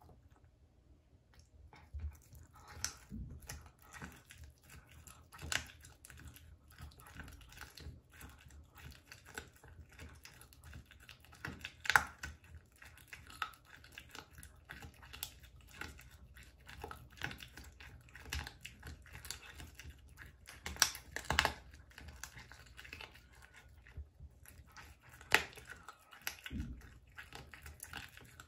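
A cat gnawing a raw duck foot: irregular crunches and clicks of its teeth working through the skin and small bones, beginning about two seconds in.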